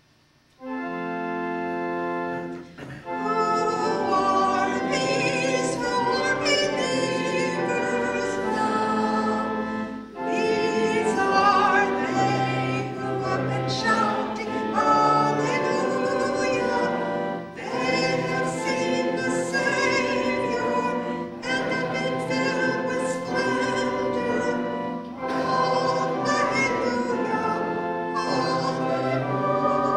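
A woman singing with organ accompaniment. It opens with a held organ chord about half a second in, and the voice comes in about three seconds in.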